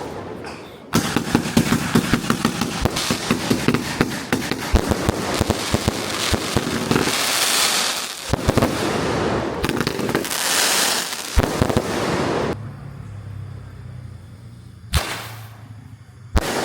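Fireworks going off: a dense run of rapid crackling pops with hissing swells, dying down about twelve seconds in. A couple of short loud bursts follow near the end.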